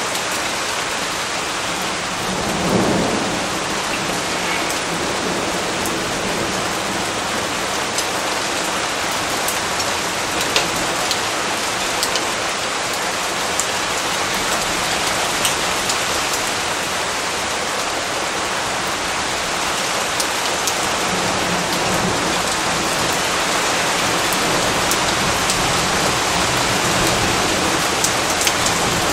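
Steady heavy rain, with a low rumble of thunder about three seconds in and a few sharper drops ticking through it.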